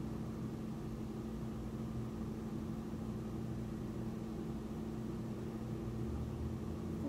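Room tone: a steady low hum holding a few constant tones under a faint hiss.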